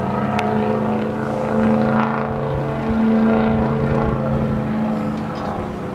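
Several stock car engines running steadily at low revs, making a deep drone of a few overlapping pitches that drift slightly up and down.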